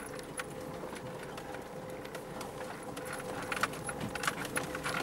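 Lada Niva driving slowly over a rough dirt track, heard from inside the cabin: a steady engine hum with rattles and knocks from the body and interior, which come more often in the second half.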